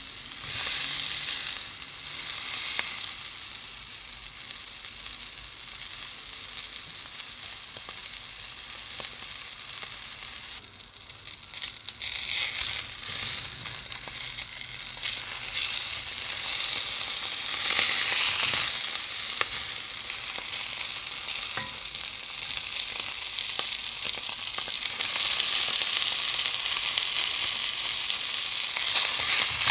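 Skin-on duck pieces sizzling in hot fat in a nonstick frying pan, a steady frying hiss that swells louder a few times and dips briefly about a third of the way in.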